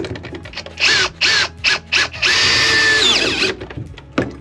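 Makita cordless drill/driver run in four short bursts, then held for about a second and a half before its whine falls away as the motor spins down.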